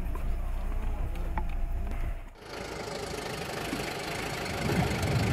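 A military light armoured vehicle's engine running, its low rumble growing louder near the end. Before it comes about two seconds of low steady hum with a few faint clicks, which ends in a sudden cut.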